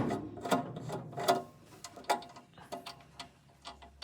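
Irregular clicks and ticks of screws being undone with a screwdriver on a dental furnace's housing. The clicks grow sparser and fainter toward the end.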